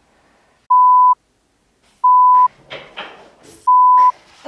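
Three short, loud single-pitch censor bleeps, each about half a second long and spaced a second and a half apart, with brief noises in between.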